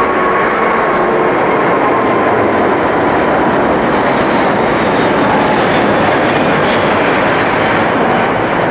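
Airbus A380's four jet engines running at full power as it climbs out after takeoff: a loud, steady jet rumble with a faint tone sliding slowly down in pitch.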